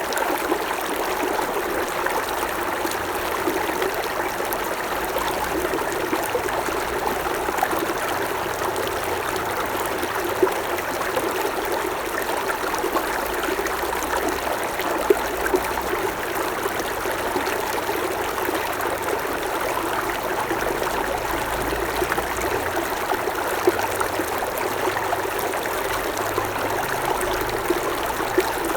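Creek water running steadily over rocks, a continuous babbling rush with small splashes here and there.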